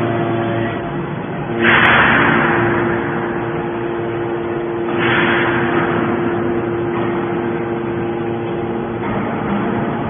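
Hydraulic scrap metal baler running, with a steady hum from its motor and pump. Twice, about two seconds and five seconds in, a louder rushing surge rises and then fades away.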